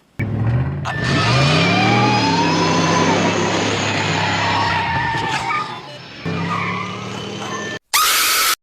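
Film sound of a car engine revving up and then running steady, with tyres skidding. Near the end, a sudden brief blast of loud noise is spliced in.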